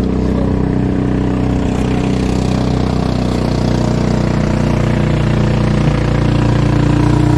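Small boat engine running steadily at low speed, a little louder near the end.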